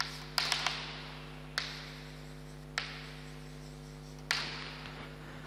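Chalk on a blackboard: a handful of sharp taps, each trailing into a short scratchy stroke that fades, over a steady low hum.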